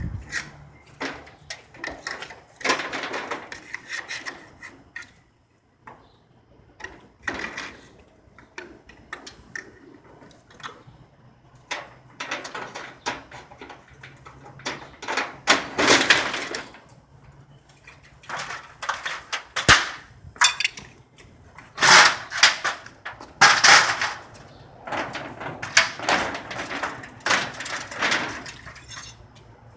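Repair work on a rolling door's spring: irregular knocks, clanks and scraping of tools and door hardware, with the loudest strikes bunched in the second half.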